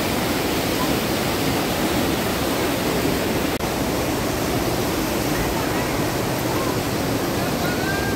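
Steady rushing of running water, like a mountain stream or small waterfall, an even hiss and roar without breaks.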